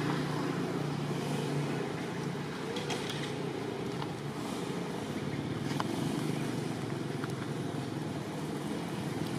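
A steady low motor drone with an even hiss over it, and a few faint ticks.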